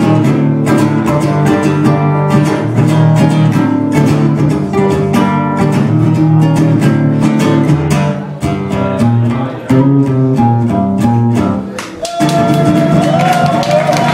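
Acoustic guitar strummed in steady chords as an instrumental passage with no singing. About twelve seconds in the strumming breaks off, and the audience starts to applaud as the last chord rings.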